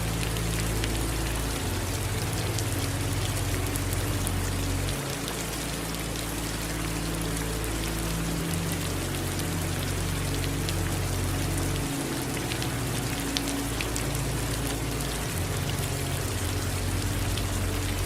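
Steady rain falling, with many small drops pattering. Under it runs a low hum that shifts to a new pitch every three to four seconds.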